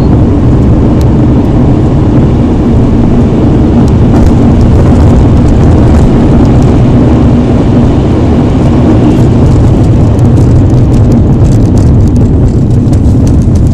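Loud, steady cabin noise of an Alfa Romeo 159 1.9 JTDm driving at speed: the four-cylinder turbodiesel's drone mixed with road and wind noise.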